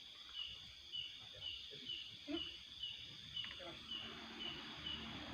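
Night insects: a steady high trill, with a short chirp repeating evenly about twice a second over it.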